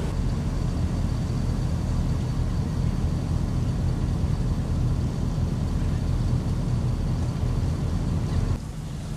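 Air compressor of a trailer's MORryde airbag suspension running steadily with a low hum and a thin high whine as it inflates the airbags to raise the ride height, then cutting off abruptly near the end.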